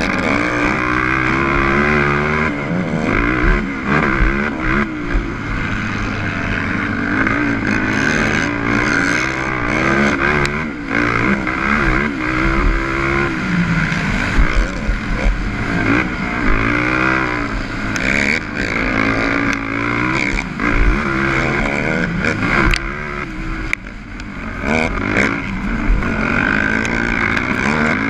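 A 450cc four-stroke single-cylinder race quad's engine heard up close, revving hard and shifting, its pitch climbing and dropping again and again. Sharp knocks are scattered through it.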